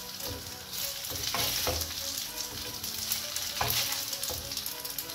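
Spaghetti sizzling in hot garlic oil in a non-stick wok, stirred and tossed with a wooden spoon and tongs. A steady hiss runs under a few short scrapes and knocks against the pan.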